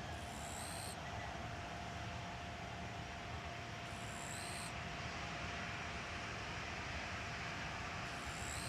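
Steady, even jet engine roar from a Boeing 787-8 Dreamliner's Rolls-Royce Trent 1000 engines at a distance, with a faint steady whine. A short, high buzz comes and goes about every four seconds.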